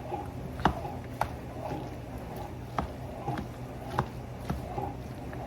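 Creamy pasta salad being stirred in a big bowl with a large spatula: a wet squelching, with short clicks of the utensil against the bowl every half second to second or so.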